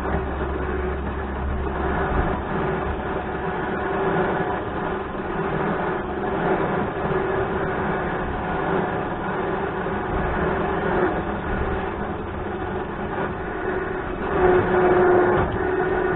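Electric winch motor running steadily with a constant whine, switched on suddenly. It grows a little louder near the end.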